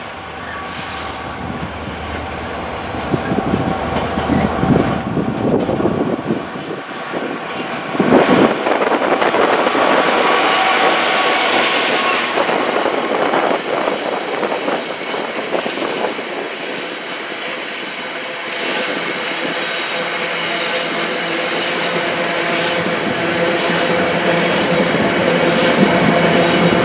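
A GB Railfreight Class 66 diesel locomotive, with its two-stroke EMD V12 engine, approaching and passing close about eight seconds in. A long rake of biomass hopper wagons follows, rolling past with a steady squeal from the wheels and growing louder toward the end.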